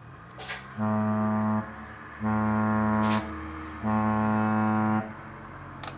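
Cruise ship's horn sounding three blasts of about a second each, with short gaps between them: a deep steady tone.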